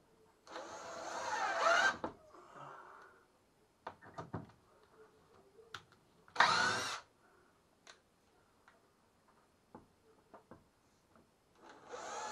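Power drill run in three short bursts, the motor's pitch rising in each, with a few small knocks from handling in between.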